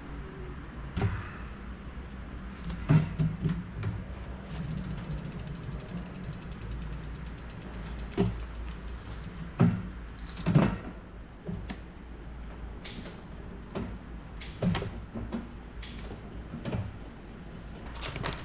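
Bicycle freehub ticking fast as a wheel spins freely, the clicks spacing out as it winds down. Several knocks and clunks of the bike being handled come before, during and after it, the loudest near the start and about ten seconds in.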